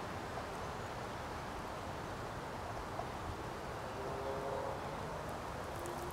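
Steady outdoor background noise, an even low rumble with no distinct events. A few faint, short tones come in about four to five seconds in.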